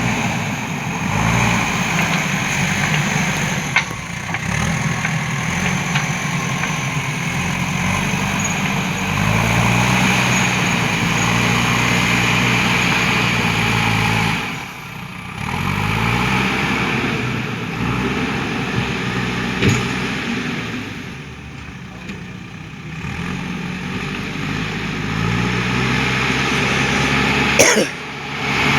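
JCB 3DX backhoe loader's diesel engine running and revving up repeatedly as the machine works, its pitch rising several times and easing off, with a few sharp knocks.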